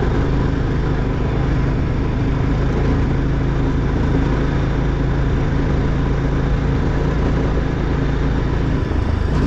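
A vehicle's engine running steadily under way, with a constant rushing noise over it.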